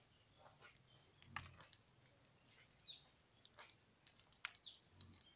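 Red corn kernels being shelled off the cob by hand, giving faint, scattered little clicks in small clusters as the kernels are prised loose.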